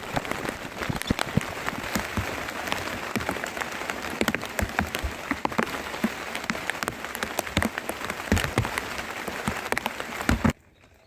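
Heavy rain falling, with many individual drops striking close by over a steady wash of rain; it cuts off abruptly near the end.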